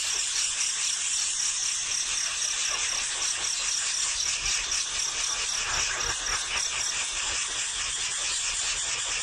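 A brood of nestling birds making noisy begging calls without a break, a dense, hissing high-pitched chatter.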